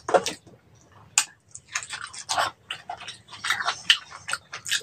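Close-miked crunching and chewing of crispy deep-fried pig skin, a run of irregular sharp crackles with a quieter pause about a second in.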